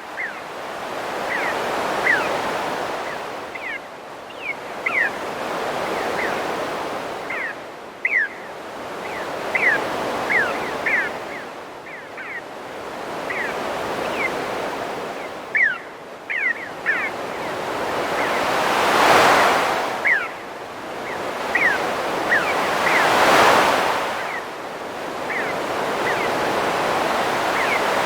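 Ocean waves breaking and washing in, swelling and fading every four to five seconds, with birds giving many short, quick calls over the surf.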